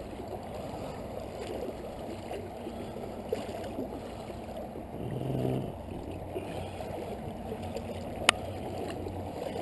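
Creek water sloshing and gurgling around a person's legs as he wades across, with a single sharp click near the end.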